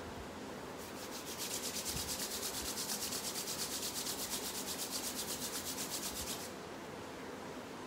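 A person's palms rubbed briskly together, a fast rhythmic swishing of about seven strokes a second that starts about a second in and stops after about five and a half seconds.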